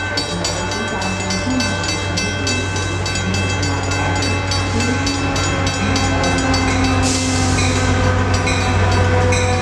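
EMD F59PH diesel locomotive with its 12-cylinder 710 engine running as it approaches and pulls a bilevel commuter train past, a steady low engine hum growing slightly louder as it nears. A brief burst of hiss about seven seconds in.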